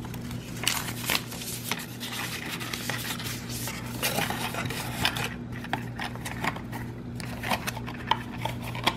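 Paper and a thin cardboard box being handled: an instruction sheet rustling and the box's flaps being folded shut, with scattered light taps and scrapes. A steady low hum runs underneath.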